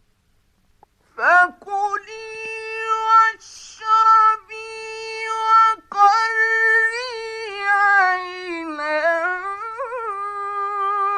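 A male Quran reciter chanting in the melodic mujawwad style. After a moment of silence he holds long drawn-out vowels in several phrases with brief breaks, sliding and trilling in pitch toward the end.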